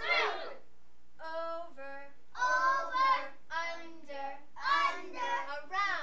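Young children's high voices in several short phrases, some notes held at a steady pitch as in singing.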